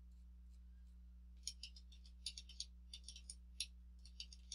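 Faint, irregular clicks from computer controls, quiet for the first second and a half and then in quick runs, over a low steady electrical hum.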